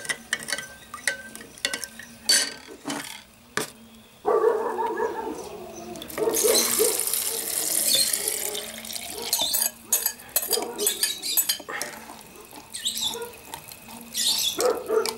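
A few light knocks and clinks, then, about four seconds in, salt brine is poured from a plastic bowl into a glass jar of caper berries, a rushing splash lasting several seconds. After the pour, a metal spoon clinks and knocks against the glass jar as it pushes the caper berries down into the brine.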